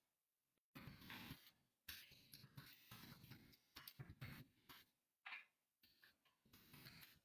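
Near silence, with faint, irregular ticking and scratching in patches a second or so long.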